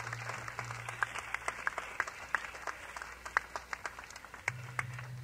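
Audience applauding after a song, with many separate claps. A low steady hum sounds at the start and comes back near the end.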